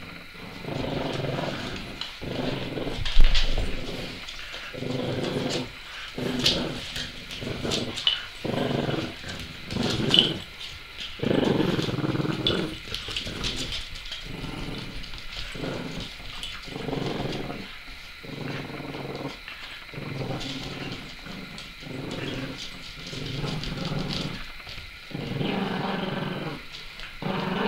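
French bulldogs and a Labrador cross growling in play, a long run of short rumbles one after another as they tussle over a toy, with scattered sharp clicks and one loud thump about three seconds in.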